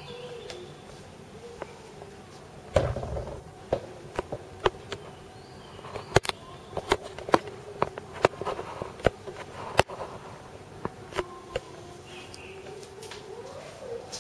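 A steady buzzing hum that wavers in pitch, with many sharp clicks and knocks scattered through it, thickest in the middle, typical of a handheld camera being moved and set down.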